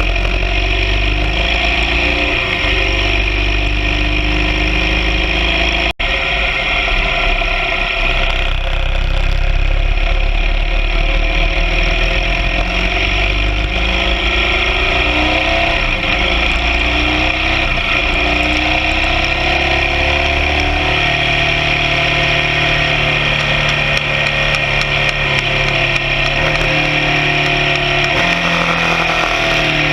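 BMW R 1200 GS Adventure sidecar rig's boxer twin engine running under way, its pitch rising and falling as it speeds up and eases off.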